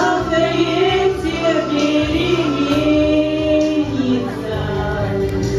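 A song playing: a singing voice holding long, gliding notes over instrumental accompaniment.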